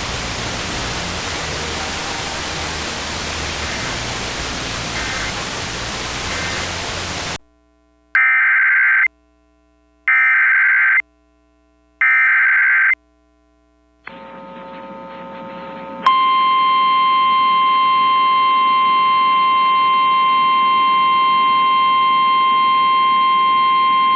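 Radio static hiss for about seven seconds. Then three one-second bursts of buzzy SAME digital header tones, about a second apart, that open an Emergency Alert System message. A few seconds later comes a steady, loud single-pitch alert tone near 1050 Hz, the weather radio attention signal, which continues to the end.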